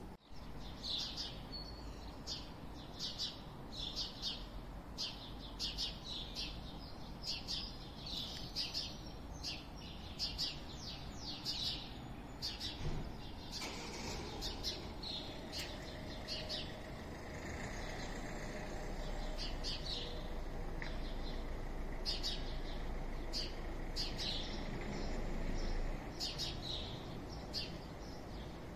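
Birds chirping in quick, short, high calls, several a second, over a steady low background rumble of the town. From about seventeen seconds in the rumble swells louder, then drops away suddenly near twenty-six seconds.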